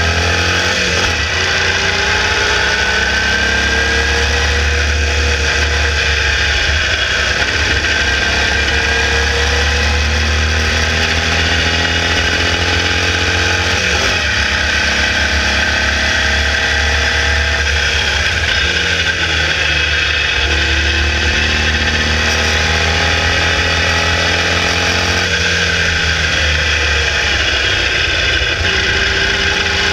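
Formula Vee race car's 1200cc air-cooled Volkswagen flat-four engine, heard onboard and driven hard, its revs climbing in long rising sweeps and dropping back several times.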